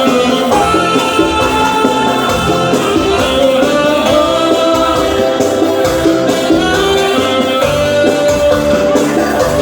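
Upbeat Latin American dance music with a female singer, pitched lines held over a steady beat.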